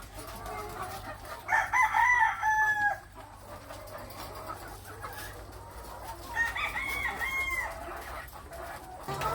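A rooster crowing twice, each crow about a second and a half long, the second about four seconds after the first, with chickens clucking faintly in between.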